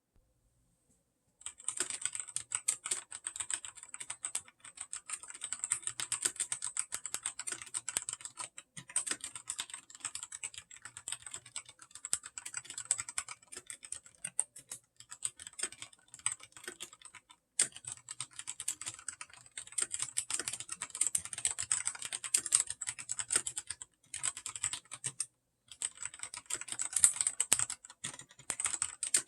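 Rapid typing on an AKKO Ducky ZERO mechanical keyboard with Cherry MX Red linear switches, a dense run of key clacks. The typing starts about a second and a half in and stops briefly twice, once near the middle and once a few seconds before the end.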